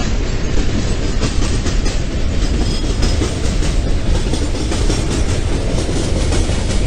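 Train running along the track: a steady, loud rumble of wheels on rail with faint repeated clacks from the rail joints.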